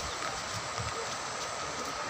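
Steady rushing of fast-flowing floodwater, an even noise with no distinct events, under a faint steady high-pitched tone.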